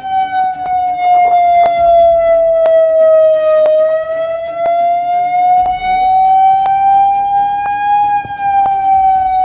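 Civil-defence air-raid siren sounding a blackout drill warning as one loud continuous tone. Its pitch sinks slowly over the first few seconds, climbs again and then starts to fall near the end. Faint clicks come about twice a second.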